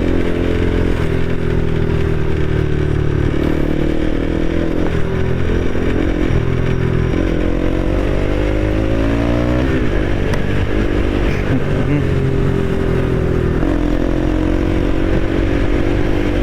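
Motorcycle with an aftermarket Akrapovic exhaust, DB killer fitted, running under way. Its note climbs in pitch as it pulls, drops sharply about ten seconds in, then climbs again near the end.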